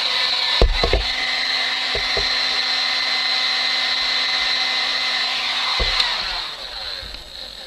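Heat gun running steadily with a whining fan, blowing hot air onto heat-shrink tubing over the cable joint, with a few knocks from handling. About six seconds in it is switched off and its whine fades away as the fan spins down.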